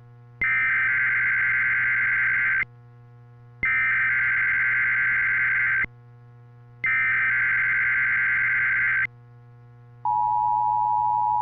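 NOAA Weather Radio SAME alert header: three identical bursts of warbling digital data tones, each about two seconds long with a second's pause between them. About ten seconds in, the steady alert tone starts. Together they mark the start of a broadcast warning, here a practice tornado test warning. A low steady hum from the receiver shows in the pauses.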